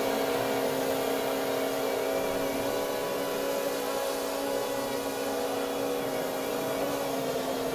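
Electric multirotor drone shaped as a bathtub, hovering and flying: its propellers give a steady buzzing hum made of several held tones.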